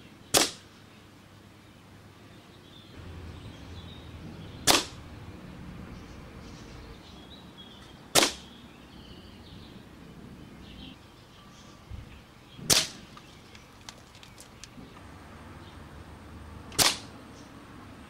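Air rifle firing pellets: five sharp shots, about four seconds apart.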